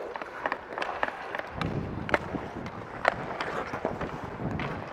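Ice hockey in play: skate blades scraping the ice, with scattered sharp clacks of sticks and puck over a low arena murmur.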